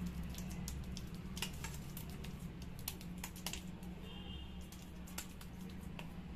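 Silicone spatula spreading thick cooked gram-flour batter on an oiled steel plate: irregular light clicks and taps of the spatula against the metal, over a steady low hum.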